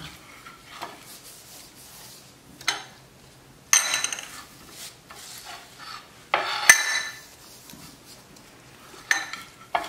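A metal spoon clinking and scraping against a small glass bowl: several separate strikes, some with a short glassy ring, the sharpest about two-thirds of the way through. Soft rubbing can be heard between them.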